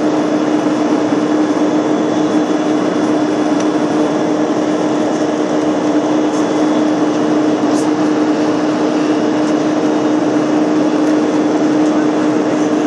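Steady airliner cabin noise in flight: even engine and airflow noise with a constant low hum.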